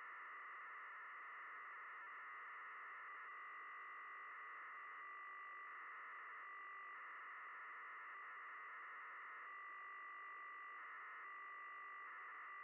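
QO-100 mid-beacon's phase-shift-keyed telemetry signal, heard as receiver audio from a WebSDR: a faint, steady buzzing band of tones whose pattern shifts every second or so as the data is sent.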